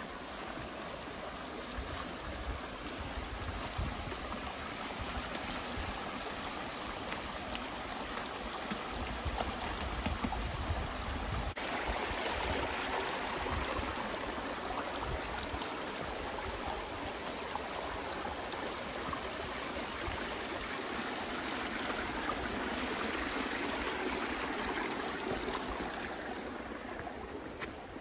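Shallow rocky creek babbling over stones, getting louder about halfway through and fading near the end. In the first half, a low rumble of wind on the microphone.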